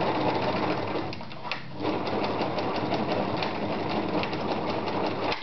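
Privileg Voll-Zickzack Superleicht 360 sewing machine running fast in straight stitch through layers of denim: a steady rapid clatter of the needle mechanism. It eases off briefly about two seconds in, then runs on and stops abruptly at the end.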